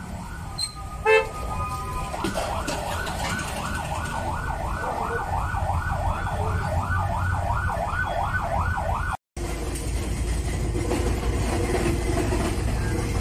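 Emergency vehicle siren wailing in a fast yelp, rising and falling about three times a second, after a short loud horn blast about a second in. The siren cuts off abruptly about nine seconds in, leaving a steady low traffic rumble.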